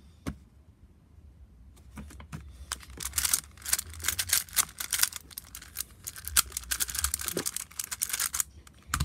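Rubik's cube being turned fast, a quick run of plastic clicks and rattles from about two seconds in until near the end, with a sharp tap at the very start and another at the end.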